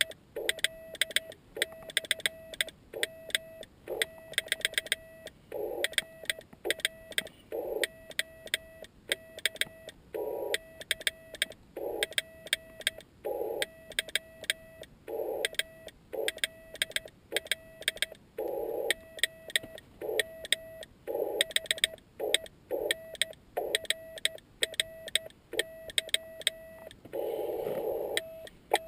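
Morse code sent slowly by hand on a homemade key built from bicycle parts: the radio's tone, about 650 Hz, keyed on and off in dots and dashes, with the key clicking on each element. Patches of hiss come and go around the tone, the longest near the end.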